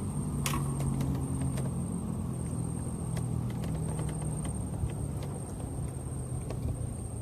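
A motor engine running steadily with a low, slowly wavering hum. A thin, steady high whine and scattered light clicks sound over it, with one sharper click about half a second in.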